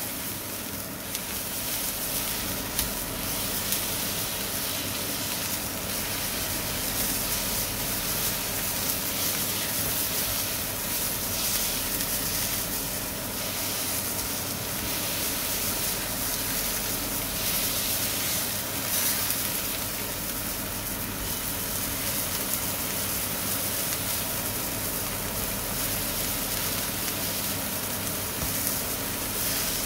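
Beef mince patty sizzling steadily in a hot non-stick frying pan as it is pressed flat.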